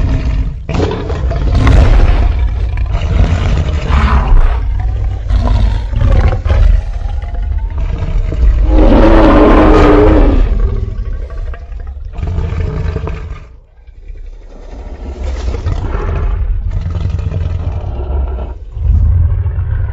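Sound-designed monster roars for a Godzilla–Tyrannosaurus rex hybrid: a run of deep roars over a heavy low rumble. The loudest is a long, pitched bellow about nine seconds in that lasts about two seconds. There is a brief lull near fourteen seconds before the roaring resumes.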